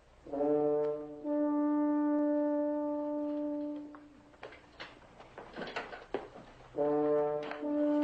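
Dramatic brass score cue, French horns foremost: a held chord settling on one long sustained note that dies away about four seconds in, then after a gap with a few faint knocks a second brass chord comes in near the end.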